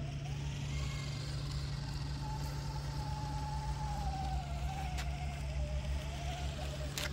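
Electric motor and gearbox of an RC scale crawler whining as it drives over a pump track, the pitch drifting up and down with the throttle over a steady low hum. There are two sharp clicks, one about five seconds in and one near the end.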